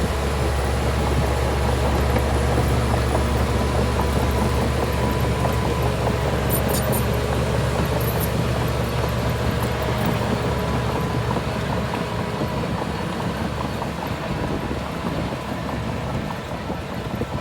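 Heavy diesel earthmoving machinery running steadily with a deep, even engine hum, a little quieter from about twelve seconds in.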